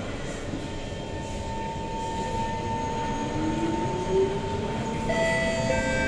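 Inside an SMRT C151 train car pulling away from a station: a whine from the traction equipment rises steadily in pitch as the train accelerates, with several higher steady tones joining near the end, over the low rumble of the moving car.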